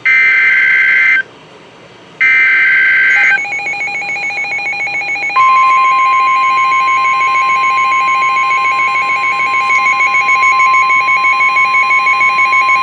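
Emergency Alert System weather-radio alert. Two bursts of SAME digital header data screech, each about a second long. About three seconds in a rapid pulsing beep starts, and about five seconds in the long steady 1050 Hz weather radio warning alarm tone joins it.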